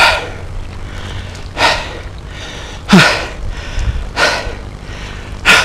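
A man breathing hard through his open mouth: five loud, gasping breaths about a second and a half apart. He is out of breath from the effort of landing a big pike.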